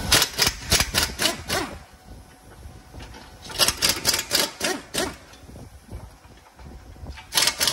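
Half-inch-drive pneumatic impact wrench hammering on a front-suspension nut, fired in short pulses rather than a continuous run: three groups of quick bursts, starting at once, around four seconds in, and near the end. The pulsed firing is the technique for sparing the suspension joints and the nut from the full shock of the gun.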